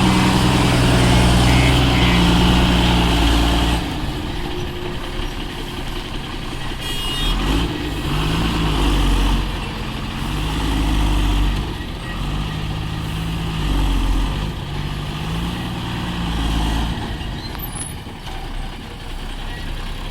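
Heavy diesel engine running loud, with a series of evenly spaced high beeps during the first two seconds. After about four seconds the engine drops back, then revs rise and fall in repeated swells, each a couple of seconds long, as the machine works.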